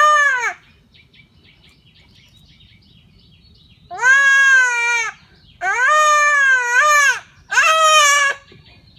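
Goat kid bleating loudly in distress while being held down and castrated. One cry ends about half a second in, then after a quiet gap three long, wavering cries come close together in the second half.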